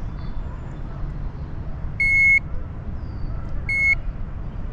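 Two short electronic beeps from a digital fish scale, about a second and a half apart, over a low steady rumble.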